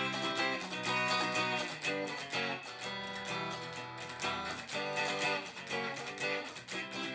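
Guitar strummed in a galloping pattern of quick down and up strokes, moving through a chord progression.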